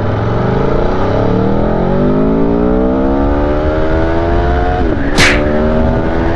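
Aprilia Tuono V4 Factory's 1100 cc V4 engine, on its stock exhaust, accelerating hard: the revs climb steadily for nearly five seconds, fall sharply at an upshift with a brief crack, then start climbing again in the next gear.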